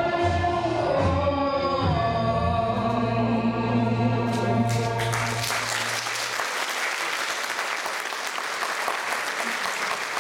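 Female vocalist singing the closing phrase of a song over instrumental accompaniment, the final chord held and dying away about six seconds in. Audience applause breaks out about five seconds in and continues.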